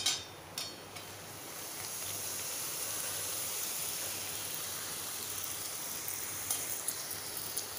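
A comb-shaped piece of stiff maida dough deep-frying in hot oil in a kadai. A couple of light clicks come as it is lowered in with a slotted spoon, then a steady sizzle that builds over the first couple of seconds.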